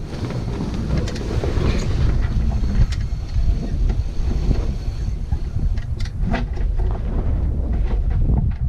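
Heavy wind buffeting the microphone at a sailboat's bow, with the slack headsail's cloth flapping and giving a few sharp snaps, around three seconds in and twice near six seconds.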